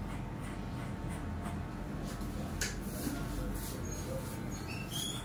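Corded electric hair clipper running with a steady hum while it cuts a boy's short hair, with faint scratchy strokes as it passes through the hair. There is a sharp click about halfway through and a few short high chirps near the end.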